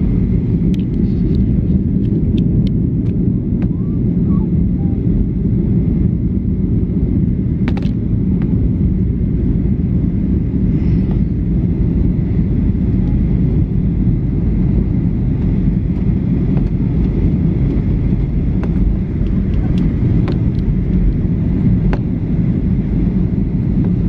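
Steady low cabin roar of a Boeing 737-800 in flight, the noise of its CFM56-7B turbofans and the airflow heard from inside the cabin, with a few faint ticks scattered through it.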